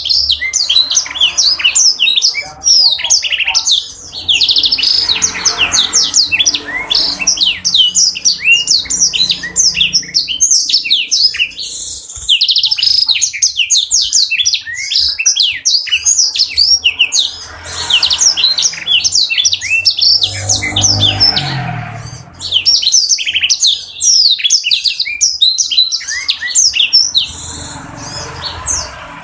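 Black-throated canary (blackthroat) singing a long, fast twittering song of rapid high chirps and trills, with a few brief pauses.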